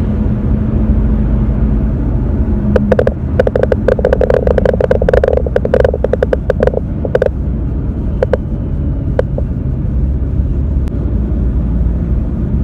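Steady low rumble of a vehicle in motion. About three seconds in, a rapid run of clicks over a buzz starts and lasts about four seconds.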